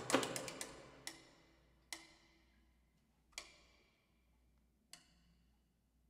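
Sparse percussive strikes from a contemporary chamber ensemble of saxophone, electric guitar, percussion and piano. A dense run of quick, dry hits fades out within the first second, then four single struck notes, each ringing briefly, come at widening gaps, the last about five seconds in.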